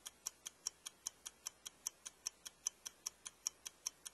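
Stopwatch ticking, an even run of sharp ticks at about five a second.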